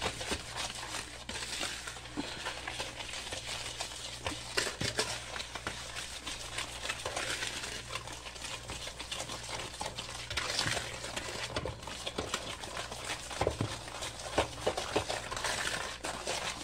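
Wire whisk beating eggs and sugar in a bowl: a rapid, continuous run of light clicks and scrapes as the wires strike and drag along the bowl.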